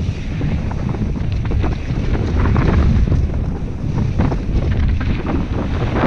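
Heavy wind buffeting on a helmet-mounted action camera's microphone at speed, mixed with the rumble and rattle of mountain bike tyres and frame over a loamy, leaf-covered dirt trail.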